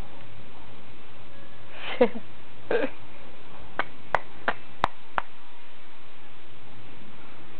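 A toddler's voice: two short falling vocal sounds, followed by a quick run of five sharp clicks about a third of a second apart.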